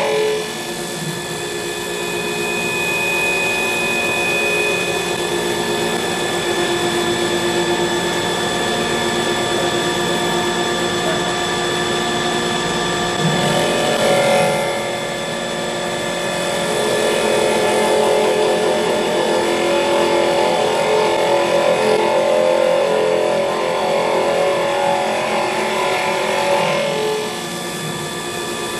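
EagleTec EA-TL1530B CNC wood lathe hollowing the inside of a spinning wood blank with a boring tool: the machine runs with a steady whine while the cutting noise swells and eases as the tool works, dipping briefly about halfway through and again near the end.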